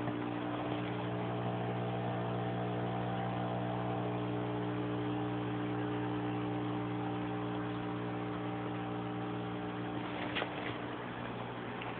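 Aquarium air pump humming steadily, with the hiss of the bubble curtain it drives. A couple of light knocks about ten seconds in.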